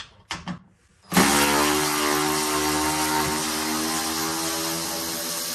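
Cordless brushless impact wrench (Hercules 20V 3/8-inch) running a bolt out. It starts suddenly about a second in and runs steadily for several seconds.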